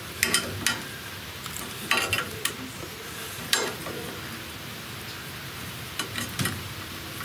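Irregular metallic clinks and knocks of hand tools on a reaper-binder's metal parts while a bracket is bolted back on, over a steady background hiss.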